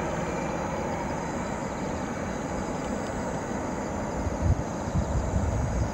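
Steady rumble of a Boeing 767-300ER's jet engines at a distance, with wind buffeting the microphone in the last couple of seconds.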